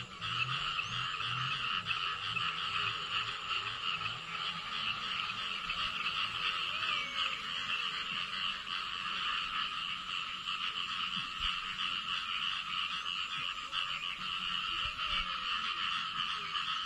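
A dense chorus of frogs calling without a break after a night of rain in the rice fields, a high massed trill that runs on steadily. Over the first few seconds a deeper croak repeats a couple of times a second beneath it.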